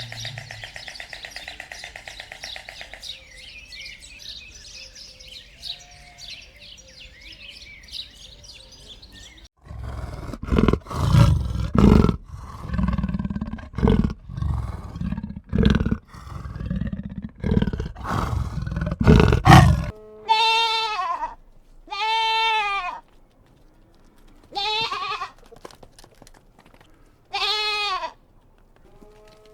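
Farm animals calling: a run of loud, deep, rough calls in the middle, then several separate bleats, one every second or two, near the end.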